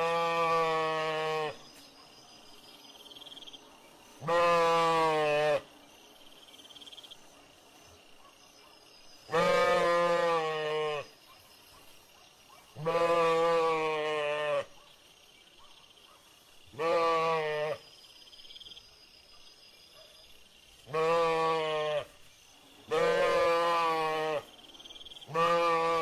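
Sheep bleating again and again: about eight long, quavering baas, each a second or so long, a few seconds apart.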